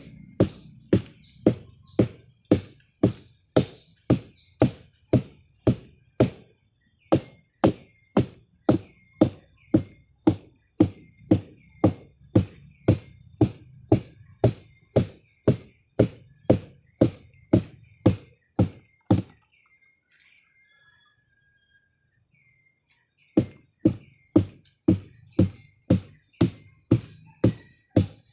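Steady rhythmic blows, about two a second, of a man beating the stalk of a young sugar-palm (aren) flower cluster to bring on the sap flow for tapping. The blows pause for about four seconds two-thirds of the way through. A steady high drone of insects runs underneath.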